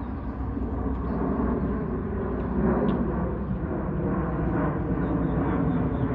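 Jet airliner passing, a steady rumbling jet noise that grows a little louder about a second and a half in.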